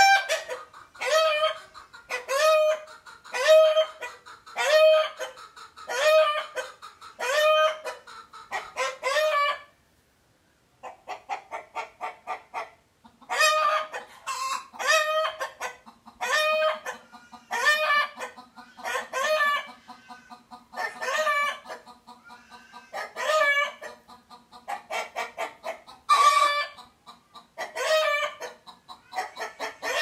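Chicken giving a steady series of short, loud, pitched calls, about one every second and a quarter. The calls break off about ten seconds in and start again about three seconds later.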